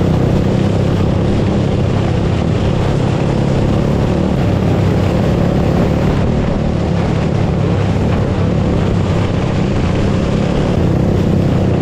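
Open 500 outlaw dirt kart engine running hard at a fairly steady pitch, loud and unbroken.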